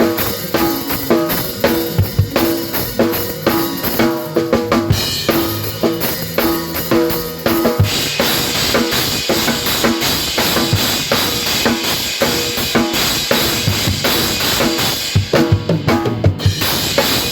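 Gospel band playing live, with the drum kit loudest: rapid kick, snare and rimshot hits over sustained keyboard chords and guitar. About eight seconds in, the cymbals open into a steady bright wash that lets up briefly near the end.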